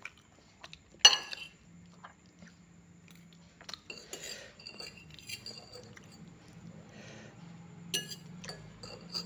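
Scattered clinks and knocks of cutlery on a plate while eating, the loudest a sharp knock about a second in and another about eight seconds in.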